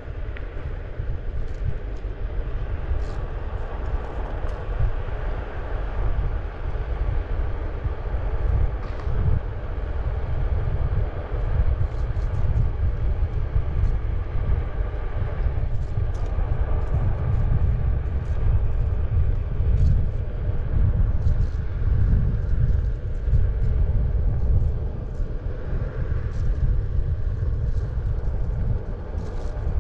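Wind buffeting the microphone and wheels rolling over asphalt while riding, with a faint steady hum and scattered small ticks.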